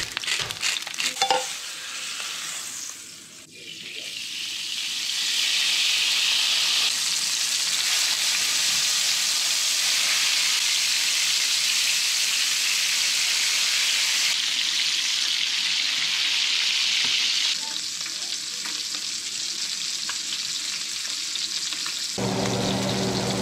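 Amberjack frying in butter in a pan: a steady sizzle, with crackling spatters over the first few seconds. A low steady hum joins near the end.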